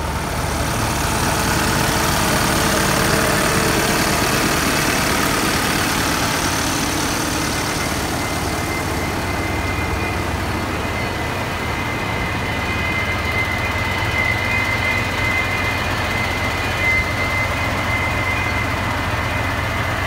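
Heavy diesel engine of a concrete mixer truck running steadily at idle. A thin, steady high whine joins it about halfway through.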